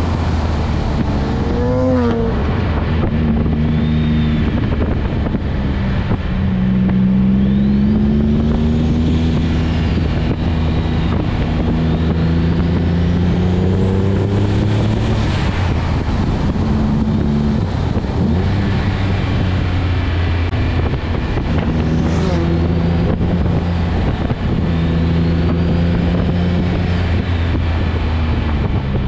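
Twin-turbocharged Nissan 350Z's V6 engine under way, revs rising and falling over and over through a run of corners, with faint high whines that climb and fall with it.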